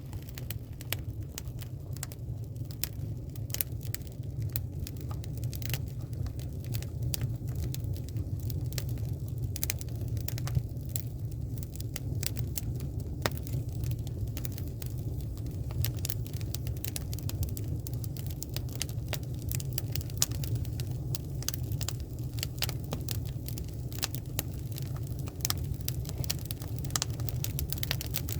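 Flames burning with a steady low rumble and frequent sharp crackles and pops.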